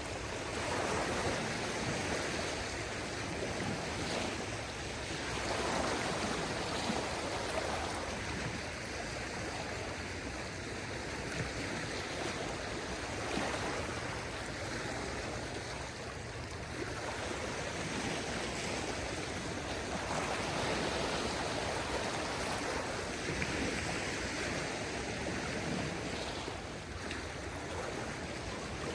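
Small waves of a calm sea washing onto the shore: a steady wash of water that swells gently every few seconds.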